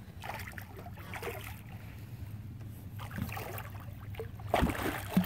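Large blue catfish thrashing at the surface beside the boat, water splashing and sloshing over a steady low hum, with two loud knocks near the end.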